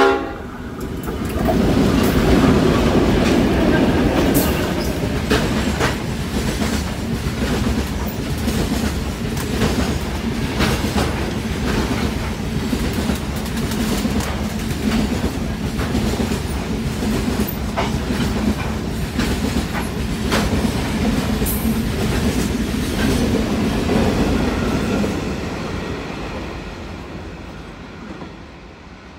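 A diesel-hauled grain train passes at speed. A horn blast cuts off at the very start. Then the locomotives' engines rumble by, followed by a long run of loaded grain hopper wagons with a steady clickety-clack of wheels over the rail joints, which fades away near the end.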